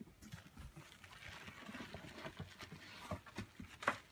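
Plastic packaging bag crinkling and rustling as a bagged unit is handled and lifted out of a cardboard box, with scattered small clicks and one sharper crackle near the end.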